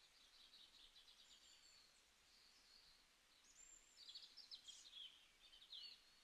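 Faint birdsong: quick high chirps and short trills, with a louder run of notes about four to six seconds in.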